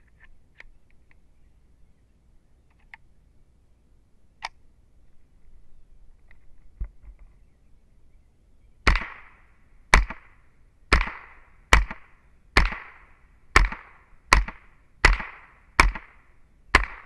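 Ten shots from a Smith & Wesson M&P15-22 .22 LR semi-automatic, fired at an even pace of about one a second, each a sharp crack with a short ring-out. A few faint clicks and a knock come before the first shot.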